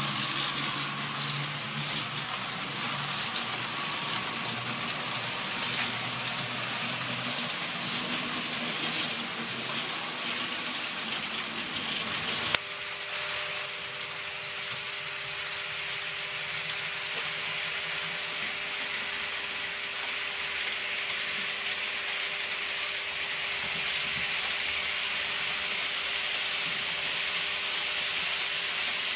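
Model trains running on a layout: wheels rolling and clicking over the track, with a small electric motor whine. A single sharp click about a third of the way in, after which a steady motor whine is heard over the rolling.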